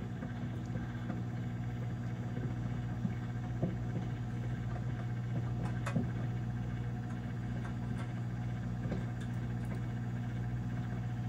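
Hamilton Beach microwave oven running mid-cycle: a steady low electrical hum that holds unchanged, with a few faint clicks.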